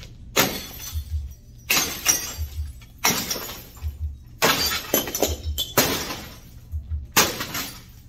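A long metal bar striking an already-smashed television six times, glass and plastic shattering with each evenly spaced blow, a little over a second apart. Background music with a steady low beat runs underneath.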